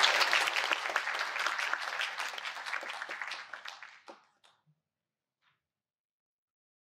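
Audience applauding, a dense patter of many hands clapping that tapers off and stops about four seconds in.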